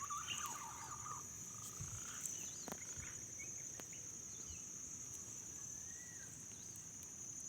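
Steady high-pitched insect drone, with faint whistled bird calls, strongest in the first second and scattered after.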